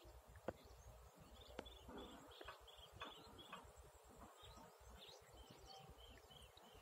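Near silence, with faint short high-pitched chirps repeated about three a second in two runs, and a few faint clicks.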